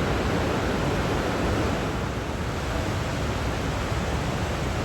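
Steady rush of fast-flowing water from a river swollen by heavy rain.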